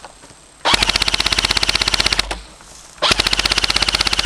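Airsoft gun firing on full auto in two long bursts of rapid, evenly spaced shots. The first burst starts under a second in and lasts about a second and a half. The second starts about three seconds in and runs on.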